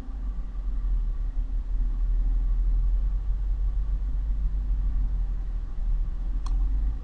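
Steady low rumble of background noise, with one short click near the end.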